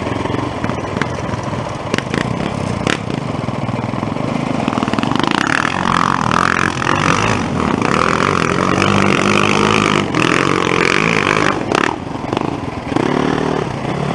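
Off-road dirt-bike engines running and revving on a rough descent, the pitch rising and falling, with clattering knocks from the bike over stones.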